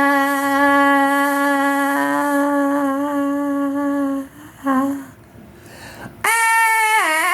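Music: a single long held note for about four seconds, then a short note, a brief quieter gap, and a higher note that slides down in pitch near the end.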